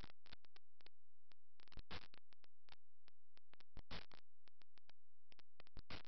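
Background music with a steady beat of short hits, a heavier hit about every two seconds.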